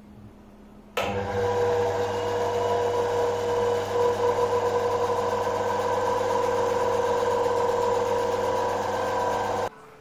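A washing-machine universal motor and a DC motor coupled by a belt, running at steady speed: an even whine over a low hum. It starts abruptly about a second in and stops abruptly near the end.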